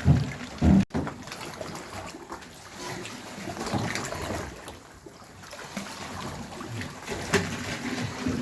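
Shallow water splashing and trickling, with irregular small splashes and two heavy thumps within the first second.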